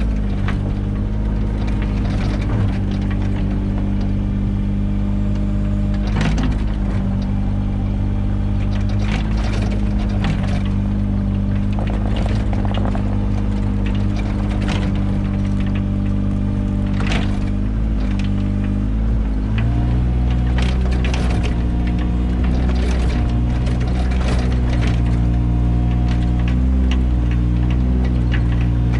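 Mini excavator engine running steadily under working load, with scattered knocks and clanks from the digging. About two-thirds of the way through, the engine note steps up and grows louder.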